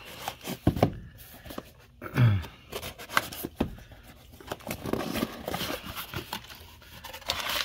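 Cardboard shipping box being cut open by hand: sharp clicks and taps of a blade and fingers on the box, then scraping and rustling as the flaps are opened and the paper packing inside is disturbed.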